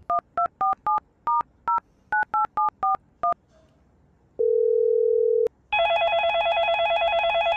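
A smartphone keypad sounding about a dozen quick two-tone dialing beeps as a number is tapped in. Then a single steady tone for about a second, and from near the end a fast-pulsing electronic ring starts as the call goes through.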